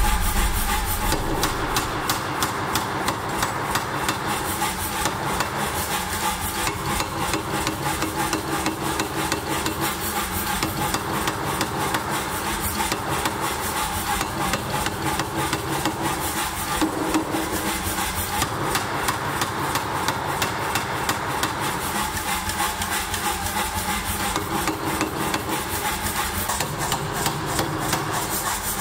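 Power hammer striking a glowing steel billet held in tongs on its die: a rapid, even run of blows that carries on without a break.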